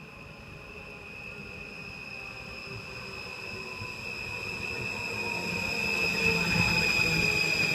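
Stadler FLIRT 3 electric train pulling into the station, growing steadily louder as it nears. It gives a steady high-pitched whine, and the rumble of the running gear swells in the last few seconds as it passes close by.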